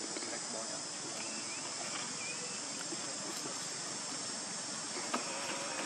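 Steady high-pitched drone of forest insects, with a few faint short chirps about a second in and a single sharp click near the end.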